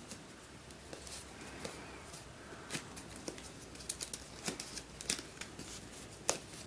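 Packaging being handled: scattered light clicks and crinkles, with a few sharper clicks in the second half.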